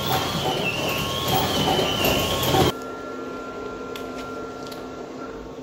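Printer running with a loud, rough mechanical noise and a wavering high whine, cutting off suddenly about halfway through; a quieter steady hum and a few faint clicks follow.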